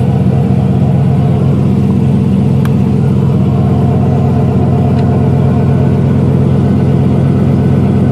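Turbocharged 4.8-litre LS V8 idling steadily, heard from inside the car's cabin, with two faint clicks partway through.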